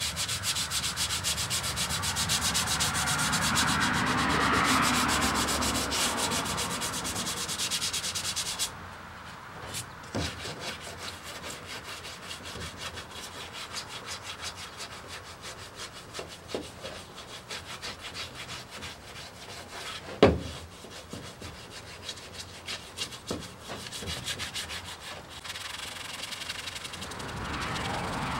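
1000-grit sandpaper rubbed by hand over the feather-fill G2 primer on a 1953 Ford F100's cab, in quick back-and-forth strokes. The rubbing is loud for the first eight or nine seconds and softer after that, with one sharp knock about twenty seconds in.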